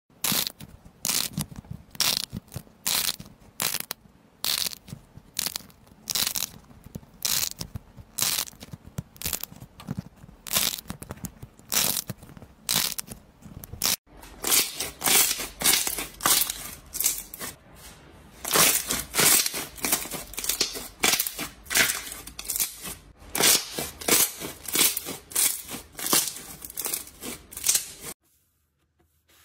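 A rubbery connected-ball stress toy squeezed over and over in the fingers, a quick run of short squishing sounds. About halfway through it changes to a hand pressing and poking a clear glossy slime, with more squishes, some louder.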